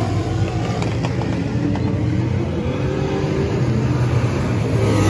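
Race car engines running during a dirt-track heat race, their pitch slowly rising and falling as the cars work around the track.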